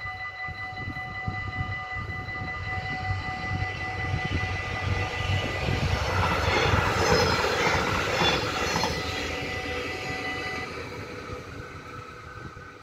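Level-crossing warning bells ringing steadily while a Stadler GTW diesel multiple unit passes over the crossing. The train's engine and wheel noise is loudest about seven seconds in. The bells stop about eleven seconds in as the train fades away.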